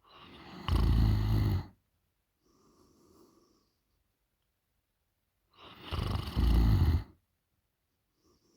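A sleeping woman snoring loudly: two rough snores about five seconds apart, each swelling up from a quieter start, with a faint breath between them.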